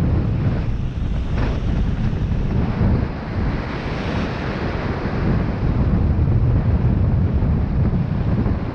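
Wind buffeting the microphone: a loud, low rumble that swells and eases with the gusts. There is a brief scrape about a second and a half in.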